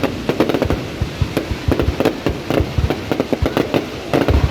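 Fireworks display: a dense, irregular run of loud bangs from shells bursting, several a second with no break.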